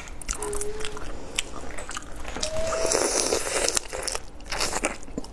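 Close crunching and cracking of a whole prawn's shell as it is pulled apart with the fingers and bitten, many sharp clicks, with a wet sucking, slurping noise about three seconds in.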